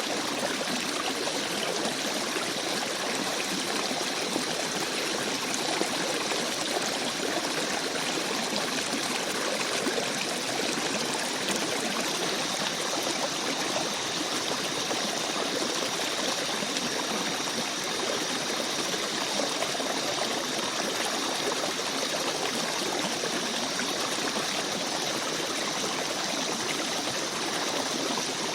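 Babbling brook: a gentle forest stream running steadily.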